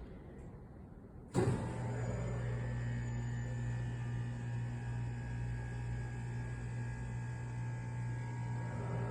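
Elevator machine room of a Schindler 330A hydraulic elevator: about a second in, a very loud, steady machinery hum starts abruptly. The hum has a strong low tone and holds steady from then on.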